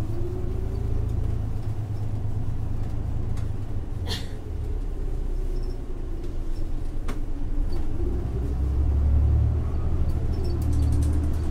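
Isuzu Erga city bus with a 6HK1-TCC turbo-diesel six and Allison five-speed torque-converter automatic pulling away from a stop, heard from inside the cabin: a heavy low rumble with an engine tone that rises and falls. The rumble grows louder from about eight seconds in, and a few sharp clicks sound along the way.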